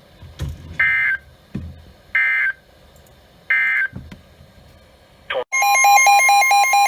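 NOAA Weather Radio end-of-message signal: three short, shrill digital data squawks about a second and a half apart, closing the tornado warning. About five and a half seconds in, the steady weather radio warning alarm tone begins, with a receiver's fast-pulsing alert beep over it for its first couple of seconds.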